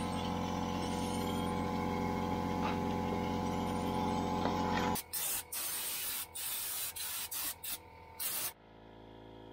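Air-powered undercoating gun spraying Surface Shield undercoating: a steady hiss over a constant hum for about five seconds. It then breaks into a run of short spray bursts as the trigger is pulled on and off, and the spraying stops near the end.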